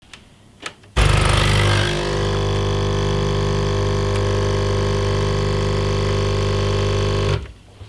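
Espresso machine pump buzzing steadily for about six seconds while a shot is pulled. It starts abruptly about a second in and cuts off abruptly near the end.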